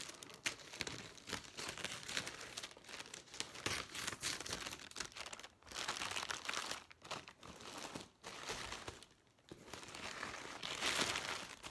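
Plastic mailer bag crinkling and tearing as it is cut open with scissors and pulled off a cardboard box, in bursts with short pauses, the loudest burst near the end.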